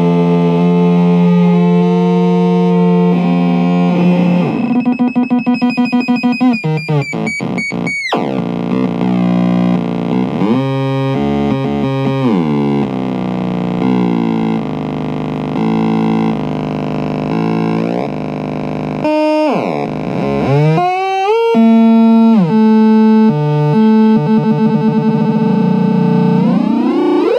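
Homemade Noise Hero noise synth circuit buzzing with harsh, distorted tones as its knobs are turned: the pitch holds, then steps, sweeps steeply up and down, and flutters in fast pulses about five seconds in.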